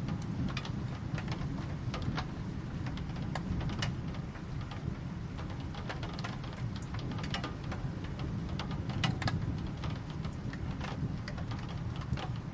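Rain, with individual drops tapping sharply on a hard surface at irregular intervals over a steady low rumble.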